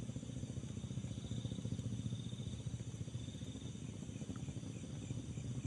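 A steady low engine-like rumble made of rapid pulses, with insects chirping faintly in a repeating pattern over it.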